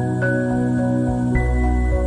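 Soft background music of held, slowly changing notes.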